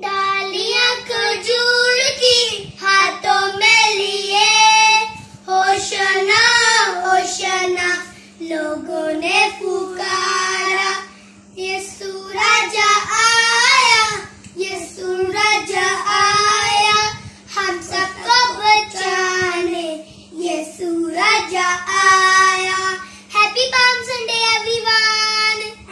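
Children singing a song in phrases with held notes and short breaths between lines, with a steady low hum underneath.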